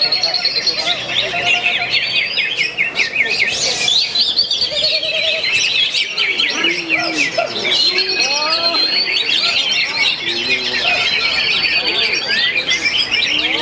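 Many caged songbirds singing at once: a dense, overlapping chorus of rapid chirps and trills, with scattered lower whistled calls mixed in.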